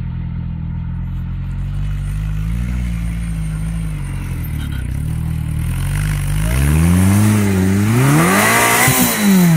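Crossle sporting-trials car's engine working under load on a rough grassy climb. It runs fairly steadily at first, then from about six seconds in grows louder and revs hard up and down several times, falling away near the end.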